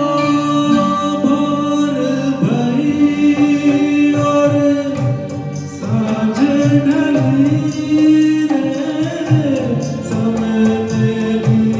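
A solo voice sings a slow Hindi song in semi-classical style over instrumental accompaniment, holding long notes with gliding ornaments. Short percussion strokes come in about five seconds in.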